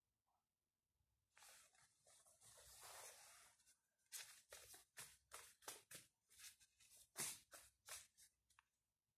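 Tarot deck being shuffled by hand: a couple of seconds of rustling, then a run of quick crisp card flicks, about three a second.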